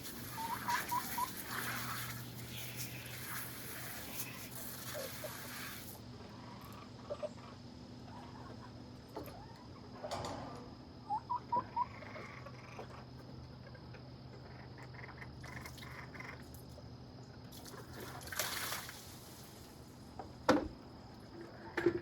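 Water running from a hose into a container, a steady hiss that cuts off about six seconds in. Bird calls of three quick chirps come twice, and a few sharp knocks sound near the end.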